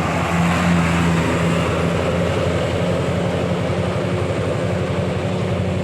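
A bus's diesel engine running close by: a steady, low drone.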